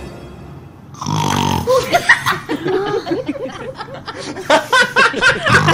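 A man making loud, exaggerated fake snoring noises: rough snorts mixed with wavering, squeaky wheezes, starting about a second in.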